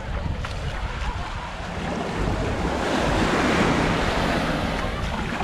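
A wave breaking and washing up the beach, swelling about two seconds in and easing off near the end, with wind rumbling on the microphone throughout.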